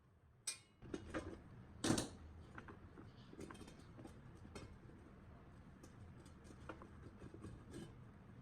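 Metal parts clinking and knocking as they are handled: two sharper knocks in the first two seconds, then lighter irregular clicks over a low steady hum.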